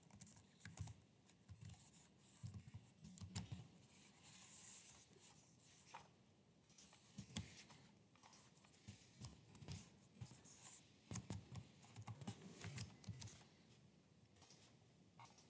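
Faint computer keyboard typing: irregular keystroke clicks in short runs with pauses between them.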